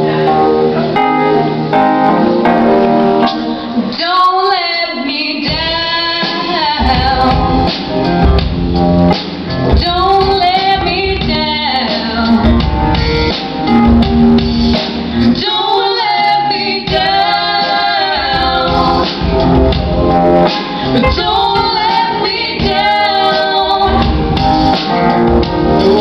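Live band playing an upbeat pop song on keyboard, piano and drums, with singing over it; the low end of the band fills in about six seconds in.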